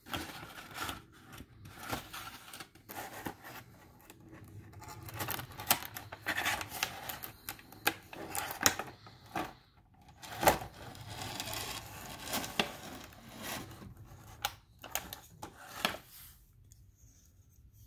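Thin clear plastic blister packaging being handled and pulled apart: irregular crinkling, rubbing and clicking of the plastic, dying down near the end.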